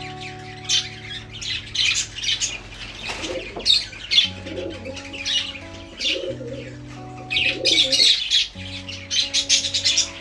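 A flock of budgerigars chattering and chirping in an aviary, in repeated bursts of high, warbling calls throughout, over background music with long held notes.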